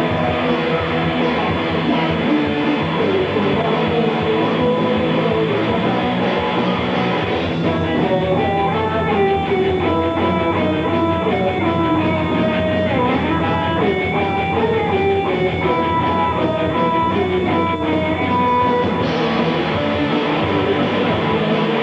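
A live rock band playing an instrumental passage with electric guitars, bass and drum kit. In the middle of the passage a single lead guitar line stands out over the band, then drops back near the end.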